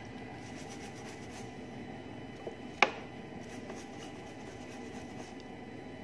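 A brush scrubbing a mobile phone circuit board, a faint scratchy rubbing, with one sharp tick about three seconds in.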